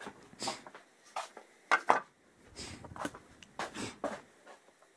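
Handling noise: a string of knocks and clatters of small hard objects being moved about, the loudest two close together just under two seconds in.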